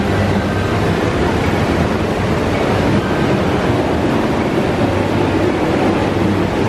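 Water from an artificial rock waterfall splashing steadily into a koi pond, an even, unbroken rush.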